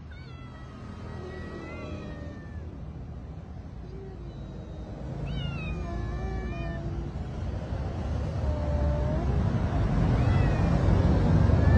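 Hungry stray cats meowing for food: a string of drawn-out meows at several different pitches, over a low background rumble that grows louder toward the end.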